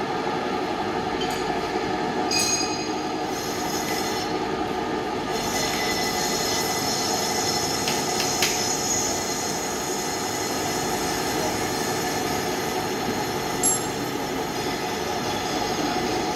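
Large engine lathe turning a ship engine's chrome cylinder liner, the turning tool cutting the metal: a steady machine whir with high, squealing ringing tones, and a couple of short clicks partway through.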